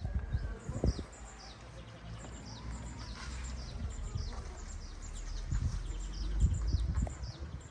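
Small birds chirping in a long run of short, high, falling notes, about two or three a second, over a low rumble with a few thumps.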